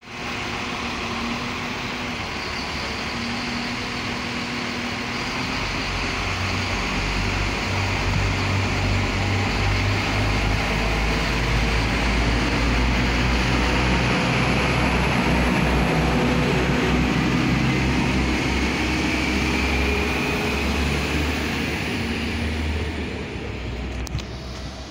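NI Railways CAF Class 4000 diesel multiple unit departing: its diesel engines run under power with wheel and rail noise, building to their loudest about halfway, then fading as the train draws away. A rising whine joins in during the second half.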